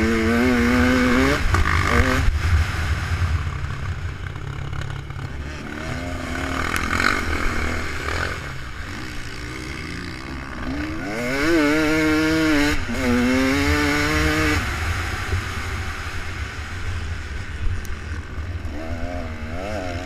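Off-road vehicle engines revving, the pitch climbing and dropping repeatedly as they labour, over a steady low rumble. The revving is loudest near the start and again about halfway through, then eases to quieter, shorter revs near the end.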